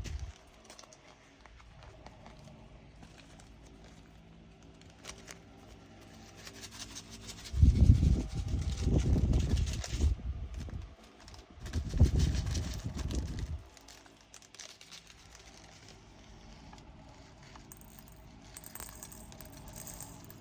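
Plastic bags of diamond painting drills being handled and crinkled, in two rough bursts of rustling and bumping about eight and twelve seconds in, with faint rustling between.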